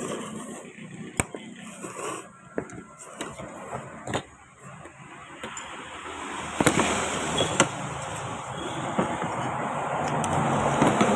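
A person eating noodle soup: noodles slurped, then a handful of sharp clinks of fork and spoon against the bowls. A rushing noise swells through the second half.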